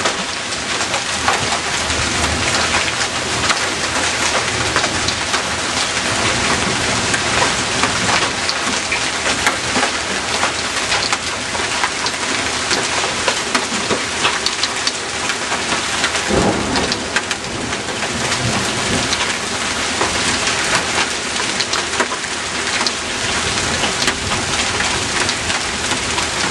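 Heavy hailstorm: a dense, steady clatter of hailstones pelting down, with many sharp individual impacts throughout and a louder stretch about two-thirds of the way in.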